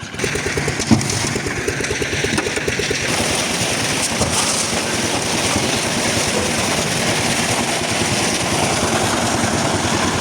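Concrete mixer machine's engine running steadily, with a knock about a second in. A louder, hissier noise joins it about three seconds in and goes on steadily.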